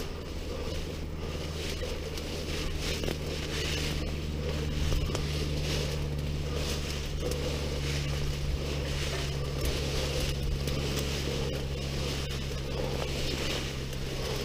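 Leafy undergrowth rustling and crackling underfoot as someone walks through dense brush, in a quick irregular patter of brushing and snapping. Under it runs a steady low hum.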